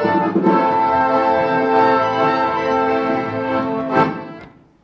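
Accordion ensemble playing a long held chord that closes with a short accented stab about four seconds in and then dies away: the end of the piece.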